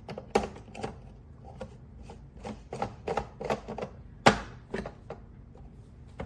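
A run of small taps and clicks from a coffee-ground-filled espresso portafilter and its tools being handled while the shot is prepared, with one louder sharp knock about four seconds in.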